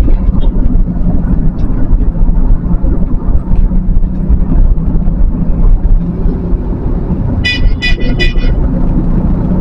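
Steady low rumble of a pickup truck's engine and tyre noise heard from inside the cab. Near the end, a vehicle horn gives several short toots in quick succession.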